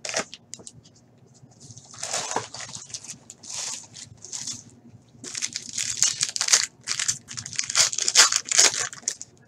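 Foil hockey card pack wrapper crinkling as it is handled and torn open by hand. The rustling comes in short crackly bursts at first, then grows denser and louder over the second half.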